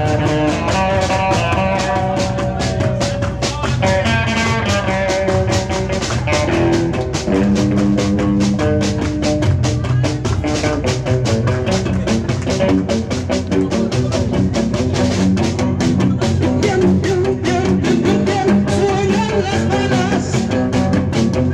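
Live band playing: electric hollow-body guitar, upright double bass and drum kit, with a steady beat on the drums. A melodic guitar line stands out in the first few seconds, then plucked bass notes carry under the drums.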